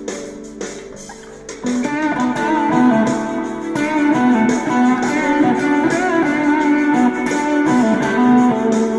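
Electric guitar through a BOSS BD-2 Blues Driver overdrive with the Keeley Phat mod, improvising a lead line in D. It opens with quieter held notes, then about a second and a half in turns louder, into a run of bent notes with vibrato.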